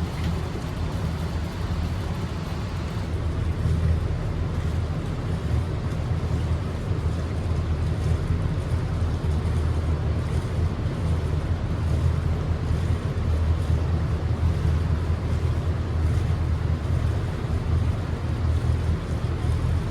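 Boat engine running steadily under way, a constant low drone, with wind noise on the microphone.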